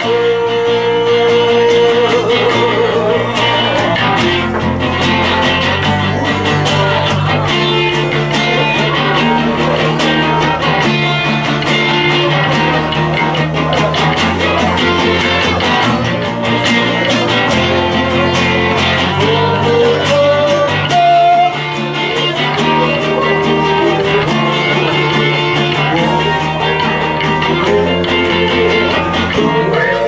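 A band playing a song live, led by guitar, with a melody line over held bass notes that change every second or two.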